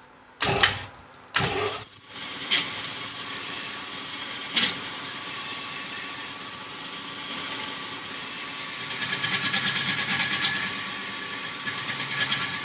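Cylinder hone running in a bore of a Perkins 248 engine block. It starts with a short burst about half a second in, starts again about a second and a half in, then runs steadily with a high, steady whine.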